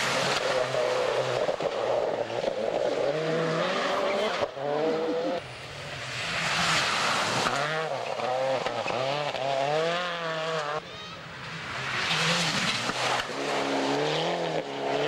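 Three turbocharged four-cylinder World Rally Cars, among them a Peugeot 206 WRC and a SEAT Córdoba WRC, pass at speed one after another on a snow-covered stage. Each engine revs up and down as it goes through the gears, over a rushing hiss from the tyres.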